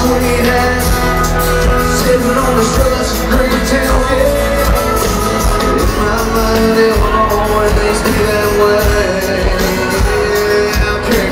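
Live country band playing: acoustic guitar, electric bass, keyboard and drums, with a man singing lead over it.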